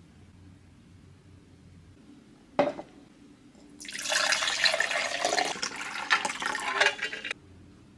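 A drink being poured into a glass in one steady stream for about three and a half seconds, stopping suddenly. A single sharp click comes a little over a second before the pour.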